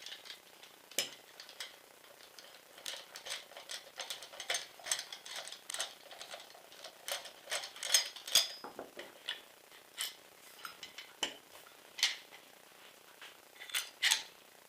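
Long screwdriver turning the big screw that holds an airsoft M4's buffer tube, with irregular sharp clicks and scrapes of metal on metal as it is worked loose.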